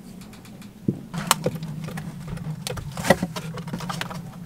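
Scattered knocks, clicks and rustles of handling around the torn fiberglass chainplate knee and plastic sheeting, starting about a second in, over a steady low hum.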